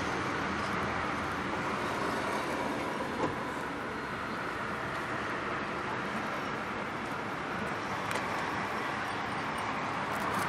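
Steady outdoor background noise of traffic, with a light click about three seconds in.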